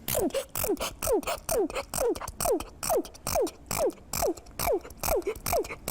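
A girl sneezing over and over in quick succession, about two to three short sneezes a second. Each is a sharp burst of air with a brief falling voiced tone. It is a fit of the chronic, non-stop sneezing she can't stop.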